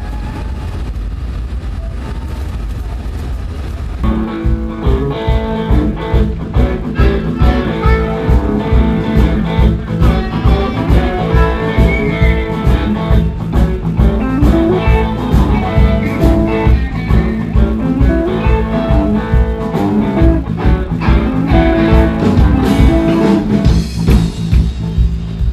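Live band playing a blues-rock number at a sound check: guitar over bass and a steady beat. The music comes in loud about four seconds in after a low steady rumble, and stops right at the end.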